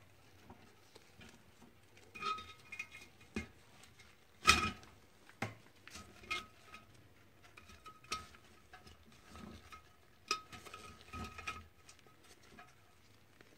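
Copper plates in a plastic holder being set down into a ceramic crock pot insert onto aluminum mesh: scattered light knocks and clinks, the loudest about four and a half seconds in, some followed by a short metallic ring.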